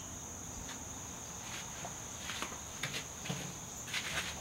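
A steady high-pitched tone in the background, with a few faint clicks and taps scattered through the second half.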